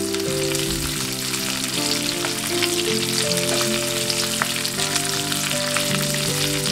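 Whole cumin, mustard seeds, split dals and curry leaves sizzling steadily in hot mustard oil in a kadai as they are stirred: the tempering frying. Soft background music with held notes plays underneath.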